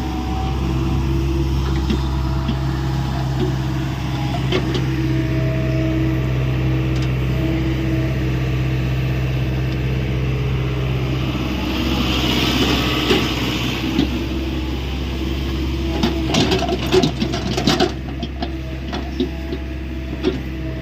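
Hyundai 85A mini excavator's diesel engine running steadily while it works, its note changing about 11 seconds in. A hiss rises and fades in the middle, and a burst of clanks and knocks comes about 16 to 18 seconds in.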